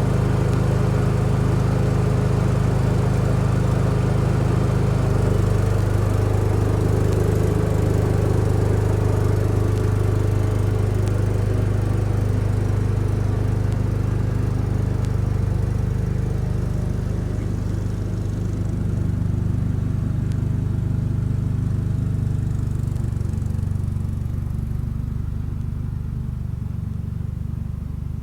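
1975 Case 224 garden tractor's engine running steadily, working the snow thrower, growing fainter in the second half.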